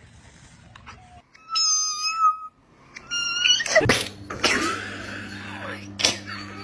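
A cat meowing: two short high calls, about a second apart, followed by rustling and a few sharp knocks over a steady low hum.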